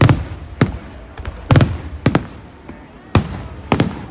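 Aerial firework shells bursting: a run of sharp bangs roughly every half second to a second, each followed by a short rumbling tail.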